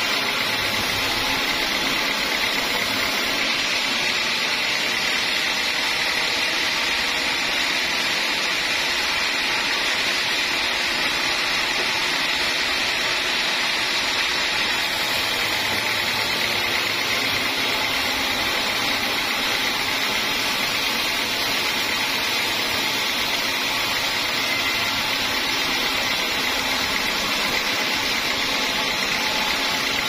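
Band sawmill blade sawing lengthwise through a hard acacia log, with the saw running at a steady, even noise and a hissing edge.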